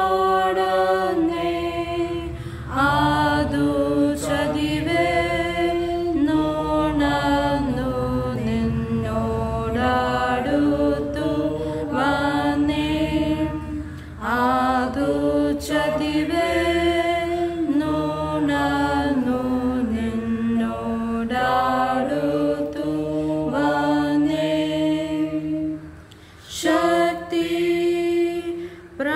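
A slow Christian hymn sung unaccompanied, with long held notes that glide into pitch and short breaks between phrases, one near the end.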